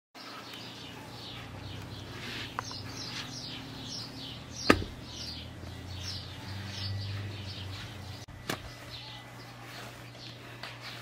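Small birds chirping in a rapid series of short, downward-sliding notes, with a single sharp knock about halfway through and a fainter click a few seconds later.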